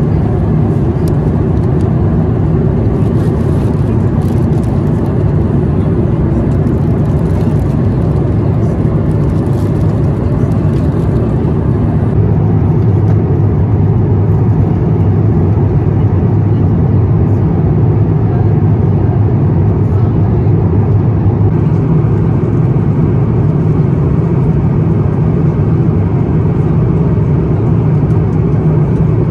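Steady cabin noise of an Airbus A350-1000 in cruise: an even rumble of airflow and engines heard from inside the economy cabin.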